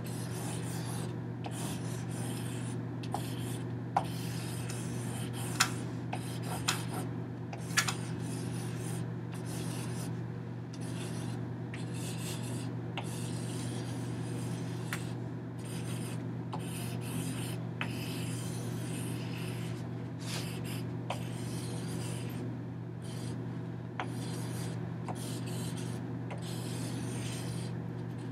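Continuous rubbing and rustling of material being handled, with a few sharp clicks in the first several seconds, over a steady low hum.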